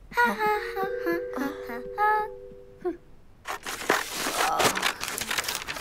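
A short tune of a few high notes over a held lower tone. Then, from about three and a half seconds in, a busy clatter of quick knocks and rustles as things are rummaged and knocked about in a wooden toy chest.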